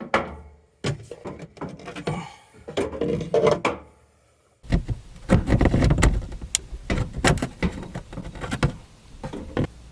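Irregular knocks, clicks and clatter of hand tools and copper pipe being handled during plumbing work. The sound breaks off abruptly twice, about a second in and about four seconds in, and is busier and heavier in the second half.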